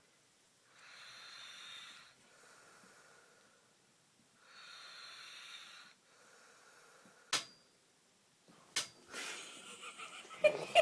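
Faint, wheezy snoring: two slow inhales with a high whistle, about three and a half seconds apart. After them come two sharp clicks and a short noisy rush of breath, and giggling laughter starts right at the end.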